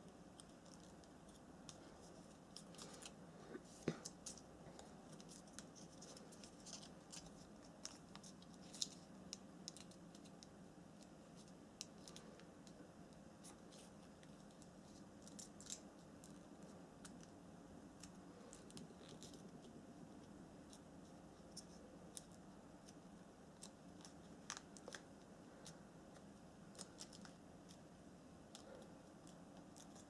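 Paper being folded and creased by hand: faint, scattered crinkles and clicks over a low, steady room hum.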